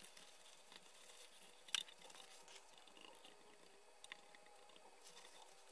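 Faint rubbing and scrubbing of a paper towel and a cotton swab over the metal faceplate and switches of a tube tester, with small ticks and one sharp click about two seconds in.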